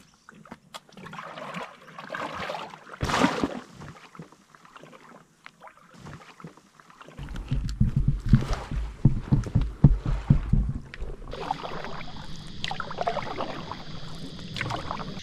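Water and paddle sounds from a stand-up paddleboard being launched and paddled, with heavy low rumbling noise from about halfway through. A steady high insect buzz starts about three-quarters of the way in.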